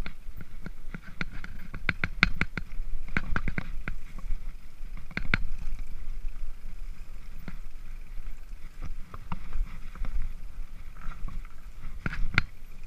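Mountain bike jolting over a rough grassy singletrack: a steady low rumble with frequent sharp clicks and rattling knocks from the bike, thickest between about one and four seconds in and again near the end.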